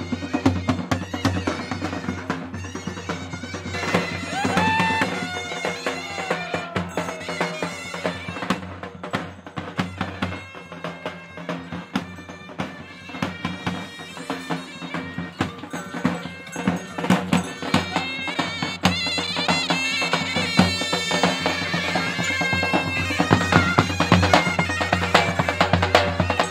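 Bagpipe playing a folk melody over a steady low drone, with drums beating along.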